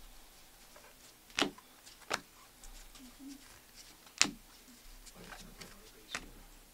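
Trading cards being handled and flipped through by hand, with a faint shuffle and several sharp taps and clicks as the cards are moved and set down. The loudest click comes about four seconds in.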